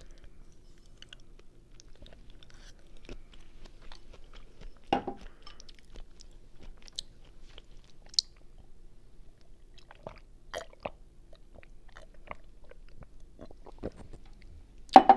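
Close-miked chewing of linguine carbonara: soft wet mouth clicks and smacks, with a louder mouth sound about five seconds in and another right at the end.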